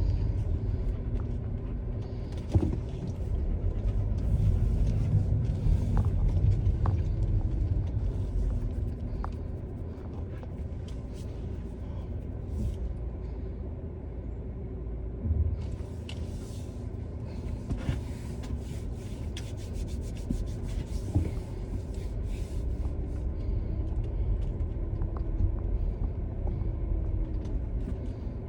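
Car driving: steady engine and road rumble, the engine's pitch rising and falling a few times, with occasional small clicks and knocks.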